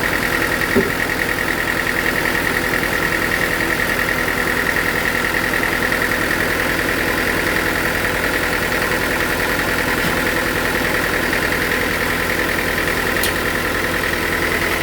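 Sawmill machinery running steadily: an engine-like drone with a steady whine on top. A short knock comes about a second in.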